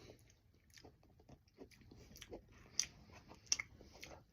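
Faint wet mouth sounds of licking a Slime Licker roller-ball sour liquid candy: scattered small lip smacks and clicks, with two sharper smacks about three seconds in.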